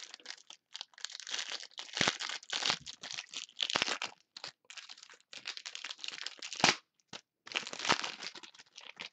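Trading card pack packaging being torn open and crinkled by hand, in irregular rustling bursts, with a sharp click about two-thirds of the way through.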